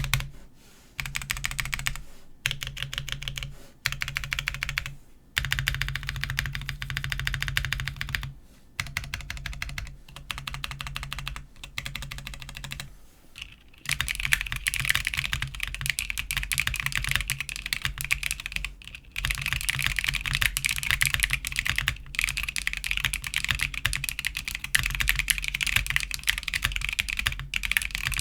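Snake60 mechanical keyboard with Tecsee Coral tactile switches, PBT keycaps, an FR4 plate and no foam. For about the first half, the modifier keys are pressed over and over in quick runs of a few seconds each, with short pauses between. From about halfway on comes steady fast typing.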